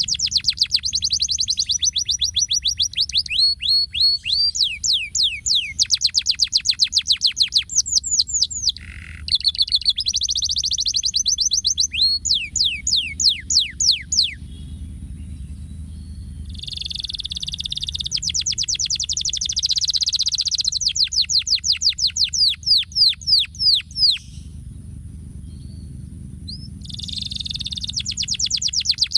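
Domestic canary singing in long phrases of fast trills and rapidly repeated falling notes, breaking off twice for about two seconds. A low steady rumble runs underneath.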